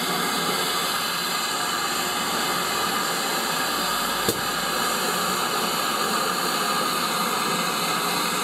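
Steady hiss of steam escaping from a standing GWR Manor class 4-6-0 steam locomotive, No. 7822 Foxcote Manor, with a single short click about four seconds in.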